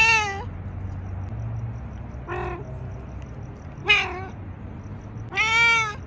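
A domestic cat meowing four times, each meow a second or more apart, the last one the longest.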